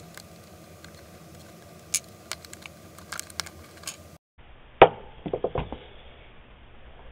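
Airsoft AK parts clicking and tapping as they are handled and fitted together on a wooden workbench. About five seconds in comes one sharp, loud clack, followed by a quick run of knocks.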